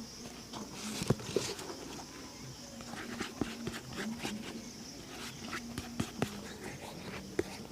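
Shoe-shining handling sounds: scattered light taps and clicks with a brief brushing scrape about a second in. A steady high insect drone and a low hum run underneath.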